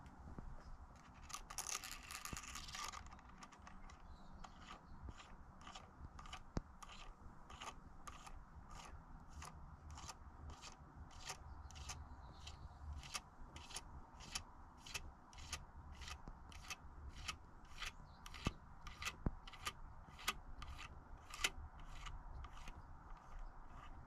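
Hand tool working on a bike's pivot bearings: a short scrape, then a long, even series of light clicks, about two a second.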